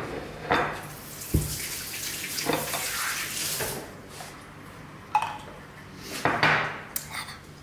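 Kitchen tap running into the sink for about two seconds, with a few short knocks and clinks around it.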